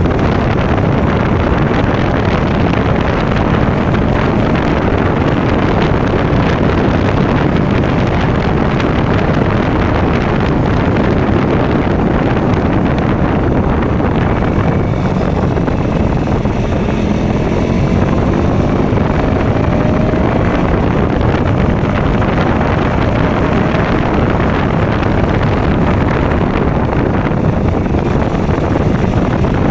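KTM Duke motorcycle engine running on the move, half buried under steady wind rush on the microphone. About halfway through, the engine note faintly rises and falls.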